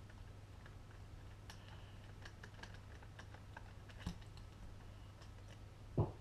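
Faint scattered clicks and ticks of a screwdriver working the screws out of a metal airsoft gearbox shell, with a louder knock near the end.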